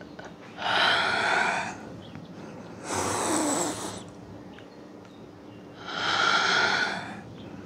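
A woman breathing deeply and audibly, three long breaths about three seconds apart.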